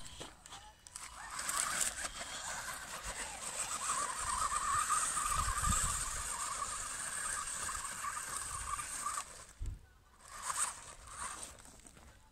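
WLtoys 12428 RC truck's small electric motor and gears whirring as it drives over dirt, starting about a second in and dying away after about nine seconds, followed by a few short scrapes.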